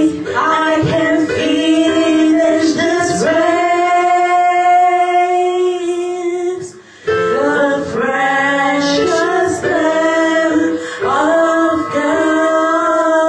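Gospel worship singing, led by women's voices with other voices singing alongside, mostly in long held notes. It breaks off for a moment about halfway, then goes on.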